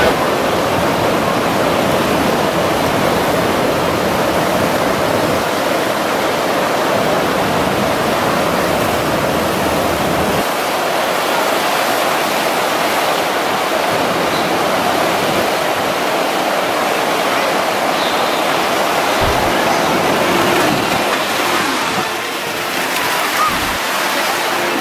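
Steady, loud rushing of water on a sheet-wave surf simulator, a thin fast sheet pumped up a padded slope, with spray splashing off it.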